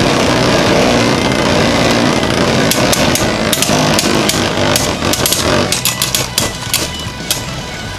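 Two Beyblade spinning tops with 3D-printed metal parts whirring and scraping on a plastic stadium floor. About three seconds in, rapid sharp clacks begin as the tops collide again and again, while the whirr fades.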